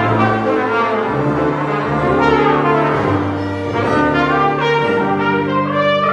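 Live ensemble music: a trumpet plays the lead melody over violins and keyboard, with held bass notes that change every second or two.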